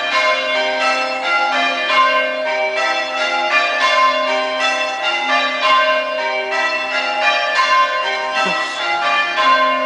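Church bells change ringing in call changes: a ring of tower bells struck one after another in an even rhythm, each note ringing on under the next.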